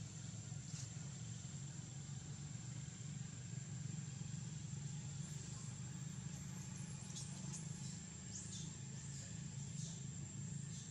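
Outdoor ambience: a steady low rumble and a steady high-pitched whine, with several short, high, falling chirps from about halfway on.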